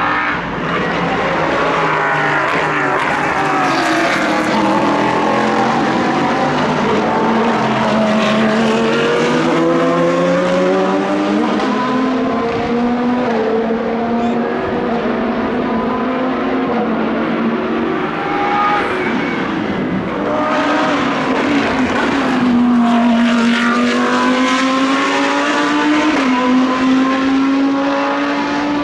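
Several high-performance sports car engines at full throttle as the cars lap a circuit. Their pitch climbs, drops and steps up and down with gear changes and braking, loud throughout.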